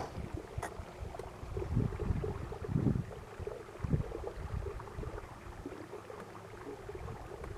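Small boat under way in strong wind: gusts buffet the microphone in uneven low rumbles while water laps and gurgles against the hull. There is a single light click about half a second in.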